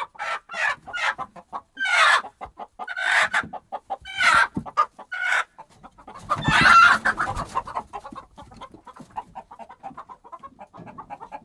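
Flustered hens clucking rapidly, with repeated louder agitated squawks and one long, loud call about six seconds in, then settling back to quicker, quieter clucking. The hens are alarmed by a disturbance.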